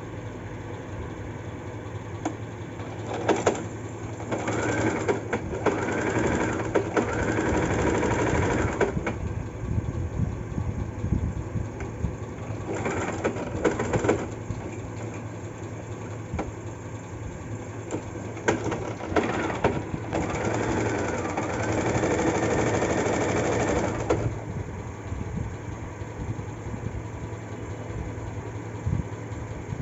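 Small electric domestic sewing machine stitching in short runs: one of several seconds starting a few seconds in, a brief one near the middle, and another of several seconds later on, with pauses between as the fabric is repositioned.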